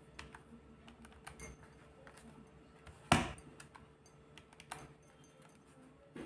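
Small metal jewellery pieces clicking and tapping as they are handled: scattered light ticks with one sharp click about three seconds in and another a little before five seconds.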